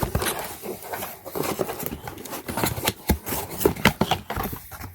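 Handling of the packaging and racing seat belts during unboxing: a dense, irregular run of crinkles, rustles and small clicks.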